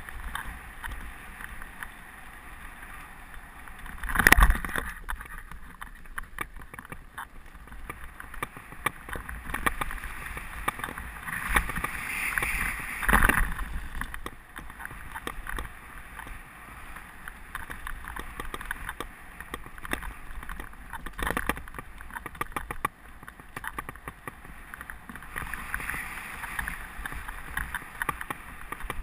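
Mountain bike riding fast down a dirt forest trail: tyres rolling over dirt and roots, with the bike rattling and many small knocks over rough ground. Two hard thumps stand out, the loudest about four seconds in and another about thirteen seconds in.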